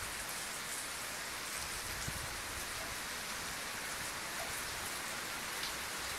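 Steady heavy rain falling, an even hiss with scattered drop hits.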